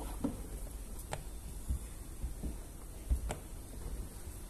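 Scattered light ticks and clicks from a squeegee working tint film against a car door window, about five of them at uneven intervals, over a low steady hum.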